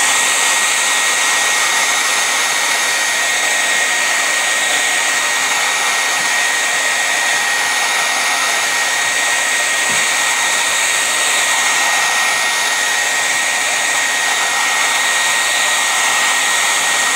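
Handheld hair dryer running steadily, a loud even rush of air with a thin steady whine from its motor and fan.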